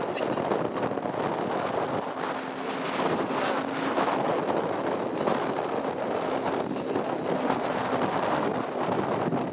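Moving bus heard from inside: steady engine and road noise with wind rushing over the microphone, and a faint steady hum from about two seconds in.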